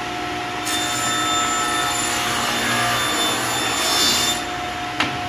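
Sliding table saw cutting through a short piece of wood over the steady hum of its running motor. The cut starts about a second in and ends about four seconds in, followed by a sharp knock near the end.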